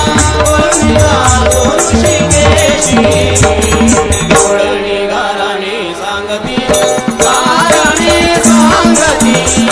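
Instrumental passage of a Marathi devotional bhajan (gaulan): a melody over hand drums and small cymbals keeping a steady beat. The drums and cymbals drop out for about two seconds in the middle, then come back in.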